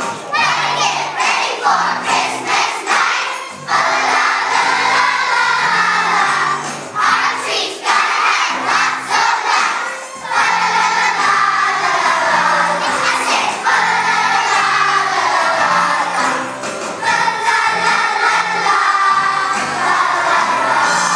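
A group of young children singing a song together over a musical accompaniment with a steady beat.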